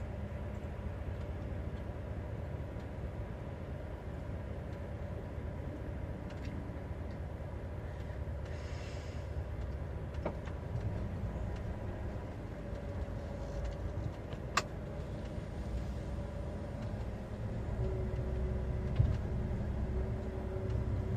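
Lorry's diesel engine running steadily, heard from inside the cab, growing a little louder near the end as the truck moves off. A single sharp click about two-thirds of the way through.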